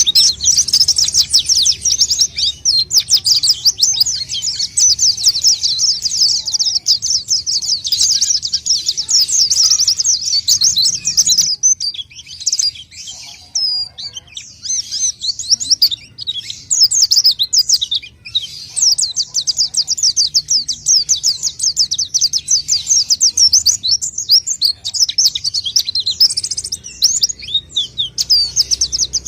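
Pleci (white-eye) singing in long, rapid, high-pitched twittering runs, with a sparser stretch of separate chirps in the middle before the fast run resumes. This is 'gacor' song used as a lure call to attract wild white-eyes.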